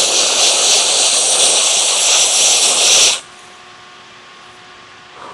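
Office Max canned gas duster spraying through its red extension straw in one loud, steady hiss that stops abruptly about three seconds in.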